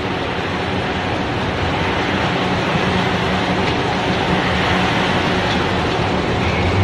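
Popcorn processing machinery running steadily: motor-driven conveyor and rotating drum equipment, a dense even noise over a low hum.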